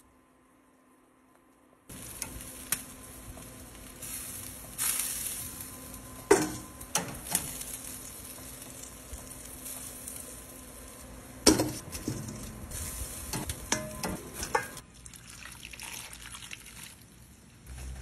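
Chicken wings sizzling on a grill grate, with sharp clicks and knocks of metal tongs against the grate as they are turned; it starts suddenly after about two seconds of near silence and falls away about fifteen seconds in.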